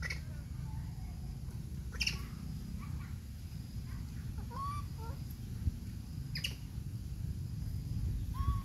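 A few short animal calls: two sharp high calls and several brief chirps that bend in pitch, over a steady low rumble.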